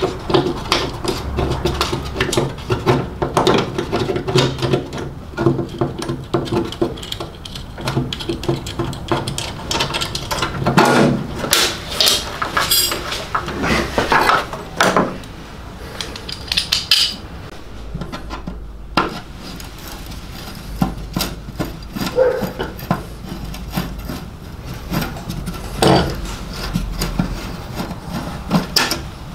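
Hands working an old wiring loom out of a car's bare steel bulkhead: wires, clips and grommets rubbing and scraping on the metal, with irregular clinks and knocks of metal parts and tools.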